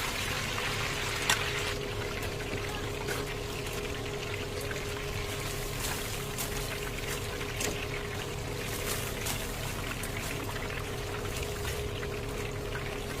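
Chicken deep-frying in hot oil, sizzling steadily with scattered crackles and a sharp click about a second in, over a steady low hum.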